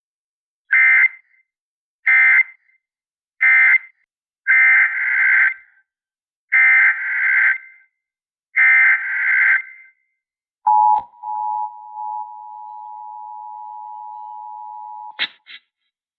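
Emergency Alert System signalling from a weather radio broadcast. Three short buzzing data bursts close out the previous warning (end-of-message). Three longer bursts follow, the header for the next alert. About ten seconds in, a steady two-note attention tone sounds for roughly four seconds and stops with a click.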